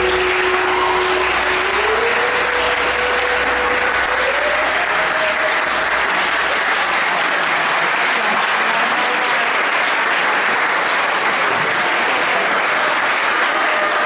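Audience applauding, with the tail of the backing music under it; the music's low bass stops about seven seconds in.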